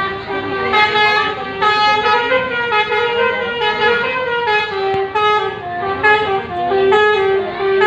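Basuri telolet bus horn playing a melody: a string of loud, held horn notes stepping up and down in pitch, each lasting about half a second to a second.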